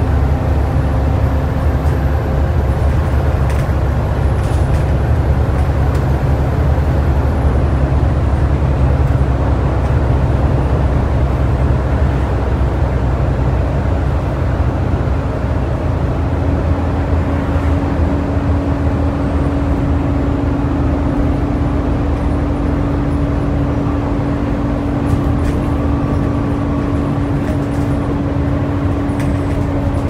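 Volvo B7TL double-decker bus's six-cylinder diesel engine running as the bus drives along, heard from inside the lower deck as a steady low drone. A steady hum comes in more strongly about halfway through.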